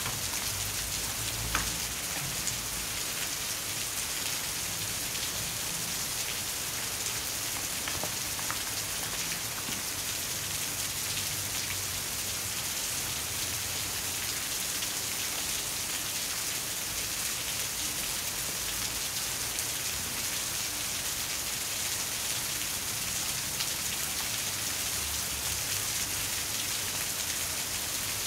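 Steady rain sound, an even hiss with no let-up, with a faint click about a second and a half in.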